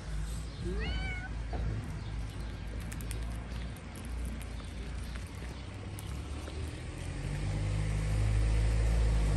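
A calico cat meows once, a short meow rising in pitch about a second in. From about seven seconds a low rumble grows louder and becomes the loudest sound.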